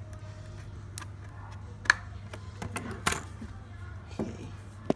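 Scissors cutting the tape seal on a clear plastic speaker box, with sharp clicks and crackles of the stiff plastic packaging being handled. The sharpest click comes about two seconds in.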